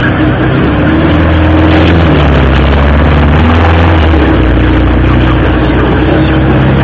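An engine running steadily, its low note changing about four seconds in.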